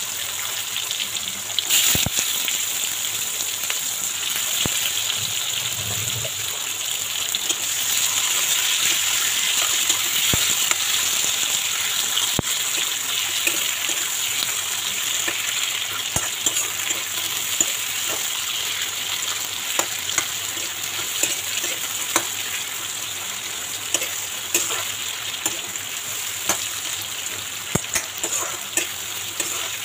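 Sliced onions sizzling steadily in hot refined oil in a steel kadai, stirred with a steel ladle that scrapes and clicks against the pan now and then.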